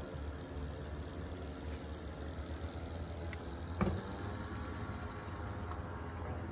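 Boat motor idling steadily, with a single knock a little under four seconds in.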